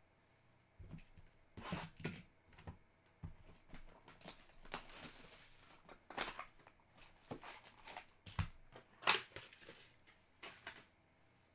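Clear plastic wrapper of a trading card pack crinkling and rustling in hand as it is handled and torn open, with cards shuffling against each other, in irregular bursts; the sharpest crinkle comes about nine seconds in.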